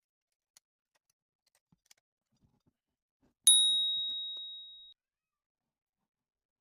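A single bright ding about halfway through, ringing on one clear tone and fading over about a second and a half before it cuts off. It is preceded by a few faint ticks.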